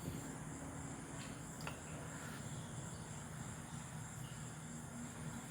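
A Hatari ceiling fan's motor running with a steady low hum, with a faint, steady high-pitched tone above it.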